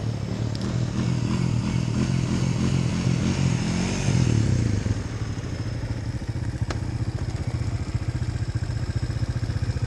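Quad (ATV) engine running close by, working harder for the first few seconds and then easing to a steady idle about five seconds in.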